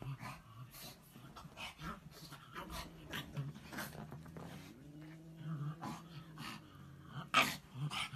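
A pug grunting, snorting and snuffling as it digs its face into bed covers, with the bedding rustling. One sharp, louder sound stands out about seven seconds in.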